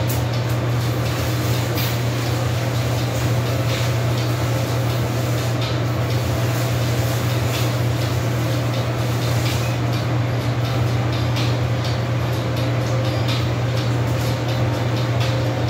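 A steady low machine hum, like a fan or air-conditioning unit running, with faint brushing strokes of a hand scrubbing a vinyl floor now and then.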